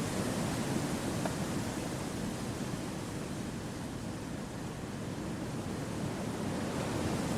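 Wind blowing through forest trees: a steady rushing noise that eases a little midway and swells again near the end.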